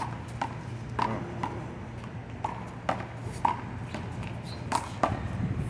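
A fast one-wall handball rally: the rubber ball is slapped by hand and smacks off the wall and pavement, making a string of about nine sharp, irregularly spaced hits, several with a short ping.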